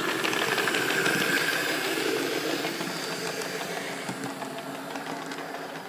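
OO-gauge model train running past on the layout: a rumble of motor and wheels on the track that swells about a second in and then slowly fades.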